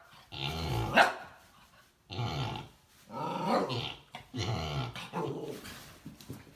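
Mini pig snoring in its sleep: about five rough, low snores in a row, roughly one a second.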